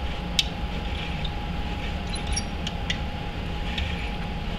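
Hand reamer in a T-handle wrench being worked in holes in a steel plate held in a vise: scattered light metal clicks and clinks, the sharpest about half a second in, over a steady low hum.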